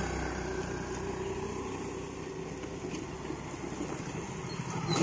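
A motor scooter's engine fading as it rides away, then a motorcycle's engine growing louder as it approaches near the end.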